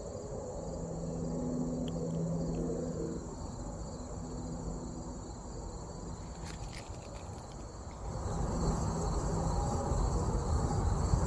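Steady high-pitched drone of a field insect chorus. A low hum is heard for the first few seconds, and a low rumble comes in about eight seconds in.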